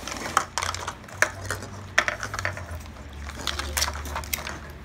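Plastic Mini Brands capsule halves clicking and clacking against each other and the table as a capsule is pulled open, with the rustle of its paper wrappers: a series of sharp, irregular clicks.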